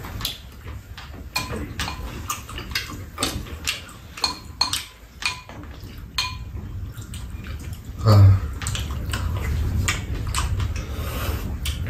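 Tableware clinking while people eat: spoons and metal chopsticks tapping against bowls and a pan in many quick, irregular clicks, over a steady low hum. A dull low thump comes about eight seconds in.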